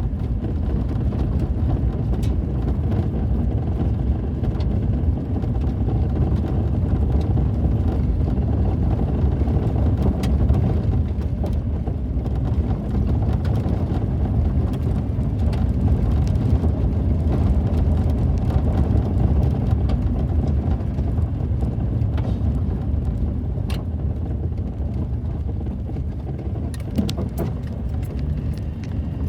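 Car driving along, with a steady low rumble of engine and road noise heard from inside the cabin and a few faint ticks.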